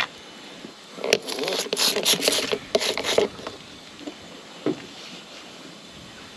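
A run of scraping and rattling handling noises with several sharp clicks for about two seconds, then two faint knocks.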